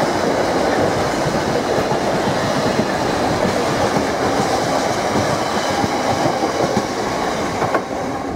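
Container freight train wagons, mostly empty flats, rolling past at speed: a steady noise of wheels on rails with clattering over the track. It eases slightly near the end as the last wagons go by.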